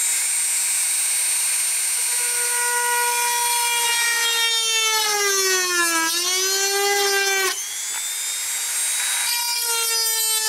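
Mini rotary tool (mini drill) running at high speed, drilling into a block of wood with a thick bit: a steady motor whine whose pitch sags about halfway through and again near the end as the bit bites in and loads the motor.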